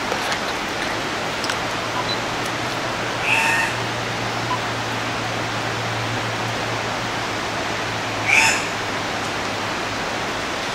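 Andean cock-of-the-rock giving two short, harsh calls about five seconds apart, over a steady hiss.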